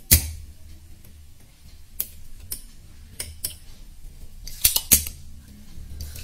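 Scattered sharp clicks and light metallic clinks of hand tools being handled against a TV circuit board and the workbench, with a few quick clicks together about five seconds in, over a low steady hum.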